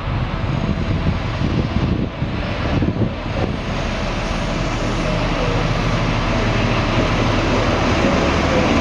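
Diesel engine of an HST 125 Class 43 power car running as the train draws in, a steady low hum with a faint whine that grows slowly louder as it approaches.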